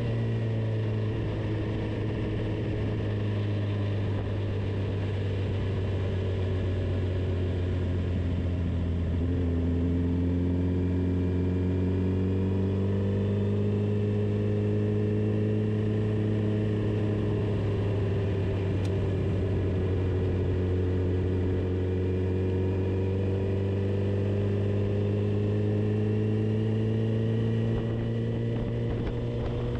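A vehicle's engine running at a steady drone, its note slowly rising and falling with speed.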